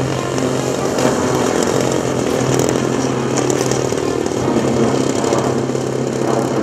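Engine of a 1:5-scale radio-controlled P-51 Mustang model running steadily as the plane touches down and rolls out on the ground.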